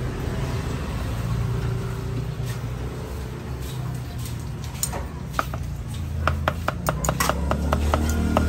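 A steady low rumble of street traffic. About five seconds in, background music with a quick clicking beat fades in and grows louder.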